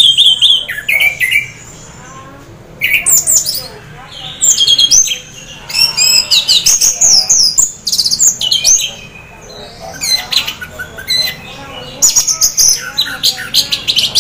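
Orange-headed thrush (anis merah) singing in bursts of quick, varied, high whistled and trilled phrases, with short pauses between them. This is the 'teler' song of a male half in breeding condition, the kind of song keepers use to prompt other thrushes to sing.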